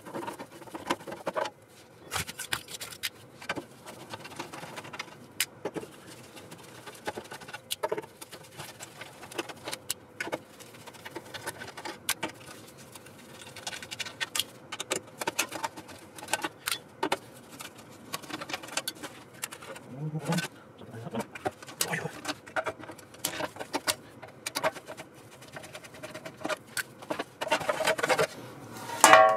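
Hand-tool work on a DeWalt air compressor's sheet-metal shroud: scattered metal clicks and clinks as its screws are undone and set down. Near the end comes a louder scraping rattle as the shroud is lifted off.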